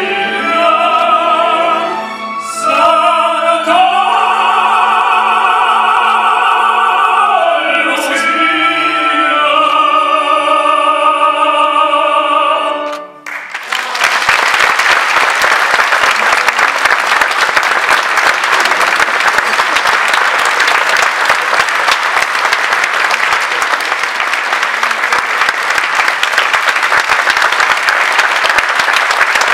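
Two male operatic voices sing through microphones with a string orchestra, ending on long held notes that cut off about 13 seconds in. An audience then applauds steadily.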